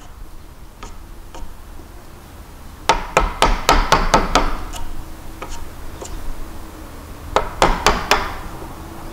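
Wooden mallet striking the plastic handle of a bench chisel, chopping waste out of a wood joint. There are two quick runs of blows, about seven after a few seconds and about five near the end, with a few light taps between.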